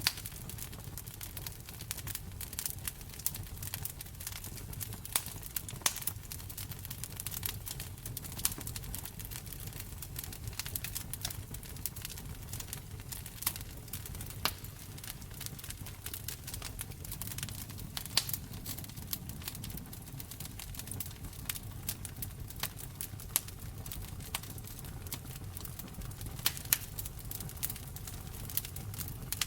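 Wood fire in a fireplace crackling, with irregular sharp pops of varying loudness over a low steady rumble.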